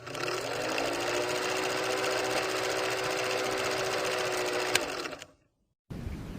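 A small machine running fast and steady: a quick, even rattle over a hum that rises in pitch as it gets going, then holds. A click comes shortly before it cuts off about five seconds in.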